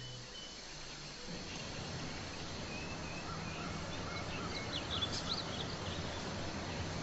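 Outdoor ambience: steady background noise with a faint low hum, and a scatter of short, high bird chirps in the middle.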